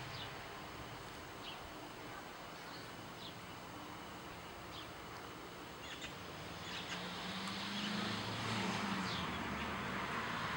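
Quiet outdoor ambience with scattered short, faint bird chirps, and a low distant engine hum that swells about seven seconds in.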